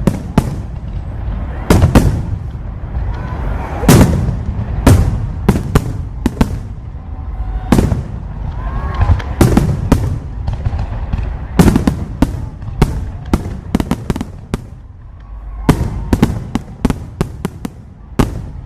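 Aerial fireworks going off: a rapid, irregular string of sharp bangs and booms, several close together at times, over a low rumble of continuing explosions.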